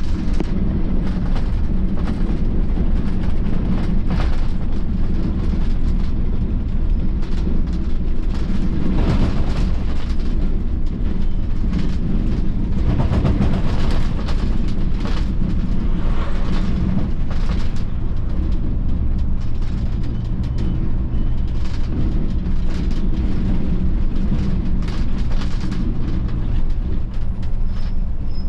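Volvo B11R coach's diesel engine droning steadily under way, with road noise and irregular bouts of rattling as the bus rolls over a rough road surface.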